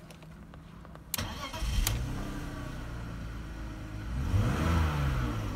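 BMW M54B22 2.2-litre straight-six starting from cold: the starter engages with a knock about a second in, the engine catches and settles into idle at about 1000 rpm, with one rise and fall in revs about four and a half seconds in.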